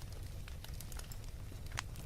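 Wood fire crackling: scattered sharp pops and snaps over a low steady rumble, with one louder snap near the end.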